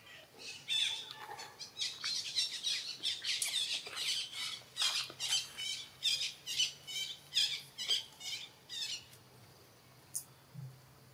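Macaque screaming in a rapid series of short, high-pitched squealing calls, several a second, which stop about nine seconds in.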